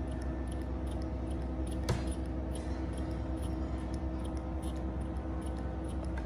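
Baby monkey sucking milk through a sippy-cup straw: faint little clicks a few times a second over a steady low hum, with one sharper click about two seconds in.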